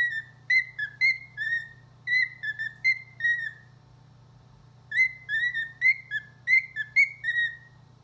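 Cockatiel whistling a tune in two runs of short, quick notes, with a pause of about a second and a half between them.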